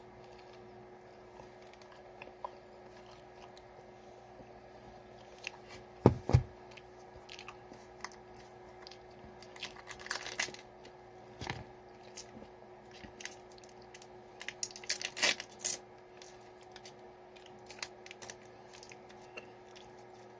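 Pizza slices and their packaging being handled and eaten: irregular crinkles, tearing and taps, with a few louder knocks about six, ten and fifteen seconds in, over a faint steady hum.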